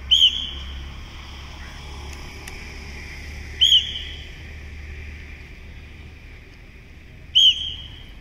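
Three short, shrill whistle blasts, about three to four seconds apart: a drill instructor's whistle giving the squad its commands to change position.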